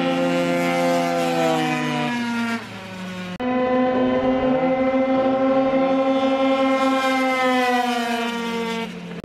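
Sprint scooter engines run at full throttle, a steady high-pitched whine held at nearly constant pitch. It drops away briefly about two and a half seconds in, comes back abruptly, and falls in pitch near the end as the throttle closes.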